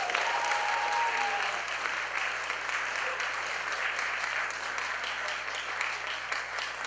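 Theatre audience applauding steadily, dense clapping at the end of a performance.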